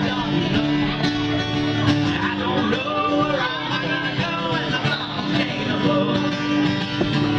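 Acoustic guitar strummed in a steady rhythm, a solo instrumental lead-in to a song.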